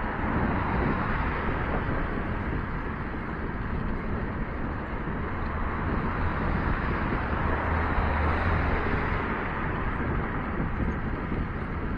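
Steady wind rush over a moving cyclist's camera microphone, mixed with the low rumble of cars driving past in the adjacent traffic lane.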